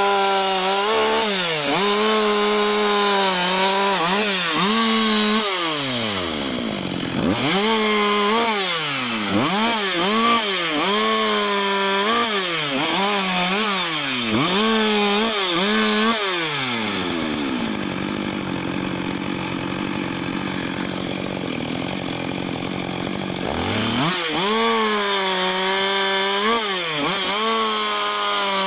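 Husqvarna 560 XP two-stroke chainsaw running near full throttle while cutting wood, its pitch dipping and recovering over and over, about once a second, as the chain loads up in the cut. It briefly drops about six seconds in, then falls to a steady idle for about six seconds in the second half before revving back up near the end.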